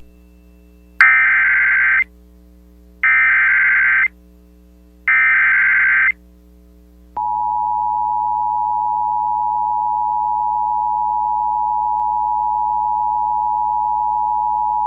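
Emergency Alert System activation: three one-second bursts of SAME header data, a warbling digital screech, a second apart. About seven seconds in, the steady two-tone EAS attention signal begins and holds, announcing a severe thunderstorm warning.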